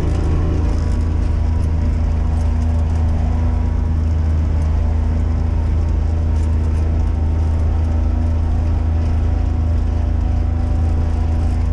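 Kubota utility vehicle on snow tracks, its engine running with a steady low drone, heard from inside the enclosed cab.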